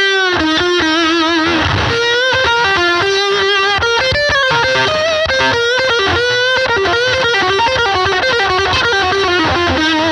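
Electric guitar played through an EarthQuaker Devices Life Pedal V3 with its Rat-style distortion, boost and octave all switched on, into a Fender Princeton Reverb amp: heavily distorted single notes that change every half second or so, several with a wavering pitch.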